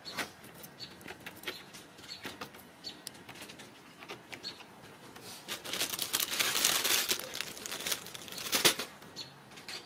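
Ragdoll kittens' claws scratching and clicking on the sisal and carpet of a cat tree as they climb, in scattered small scrapes. A longer stretch of loud rustling comes about halfway through, and a sharp knock just before the end.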